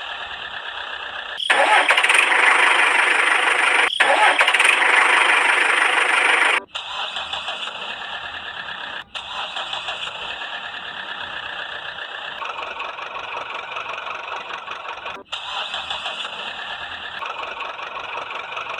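Vehicle engine sound effects, thin with no deep rumble, with a much louder, harsher engine stretch from about a second and a half in to six and a half seconds. The sound cuts off abruptly and resumes several times.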